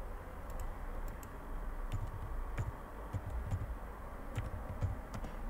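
Computer keyboard keys clicking in an irregular run of typing.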